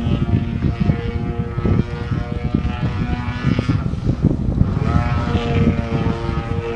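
O.S. 33 cc gasoline engine with an MTW canister muffler, pulling a 2000 mm Extreme Flight MXS aerobatic model plane through manoeuvres. Its note drops about four seconds in and climbs back up about a second later as the throttle is worked, over a gusty low rumble.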